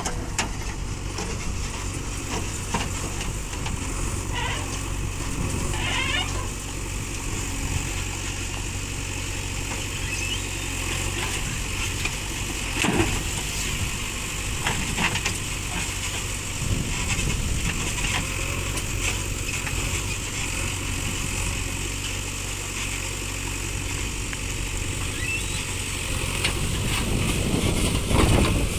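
Diesel engine of a JCB 3DX backhoe loader running steadily at work, with a few short knocks, the sharpest about 13 seconds in.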